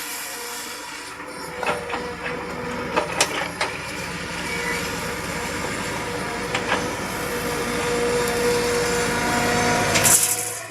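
Backhoe excavator working: its engine runs with a steady drone, with several sharp metal clanks in the first few seconds and another about six seconds in. The engine grows louder toward the end, then the sound drops off suddenly.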